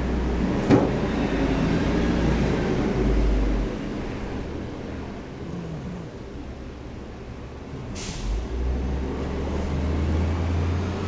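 Sleeping cat snoring: a low rumble that fades about four seconds in and returns about eight seconds in, with a sharp click near the start and another about eight seconds in.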